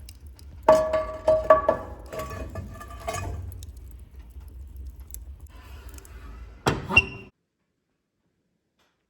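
Kitchenware clinking and knocking with a ringing tone, several quick clinks in the first few seconds and one more clank near the end, over a low rumble. The sound then cuts off abruptly.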